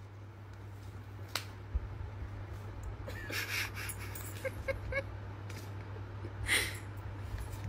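German Shepherd chewing and tossing a cardboard sign: scattered rustling and crinkling of the card with a sharp click early on and a few short high squeaks about the middle, over a steady low hum.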